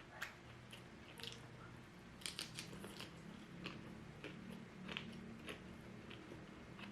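A person biting and chewing crisp fried shrimp and lumpia, close to the microphone: irregular sharp crunches, with a quick run of them a little past two seconds in.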